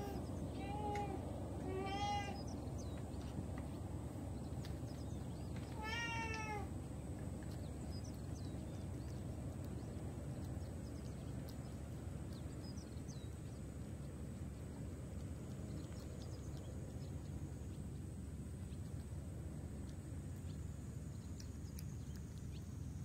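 A cat meows several times while its food is being set out, the last call about six seconds in: begging for the meal. Then faint clicking and smacking as the cat eats wet food off a metal tray.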